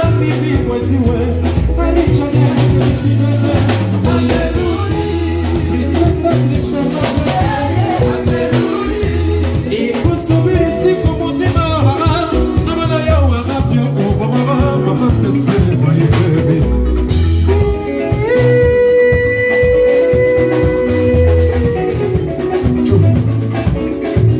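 Band playing Congolese rhumba, with singing over guitar, bass and drum kit and a steady beat. A long held note sounds about three-quarters of the way through.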